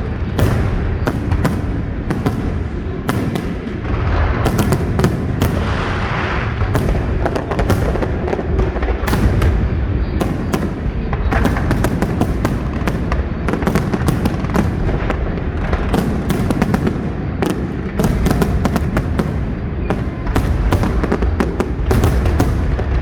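Aerial fireworks bursting in rapid, unbroken succession: many sharp bangs and crackles over a constant deep rumble of booms.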